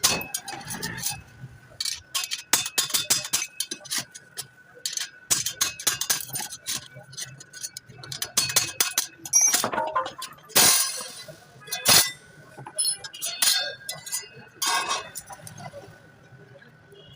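Metal tools and parts clinking and knocking in irregular taps and clanks during clutch plate repair work, with a faint steady high tone underneath.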